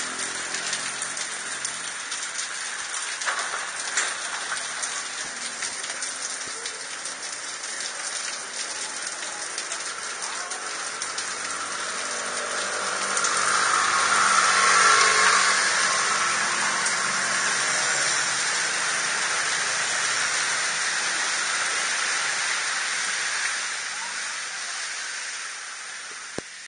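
Heavy rain pouring onto a wet city street and its metal and plastic awnings, a steady rush with scattered drip ticks. It swells louder about halfway through, then eases and fades out near the end.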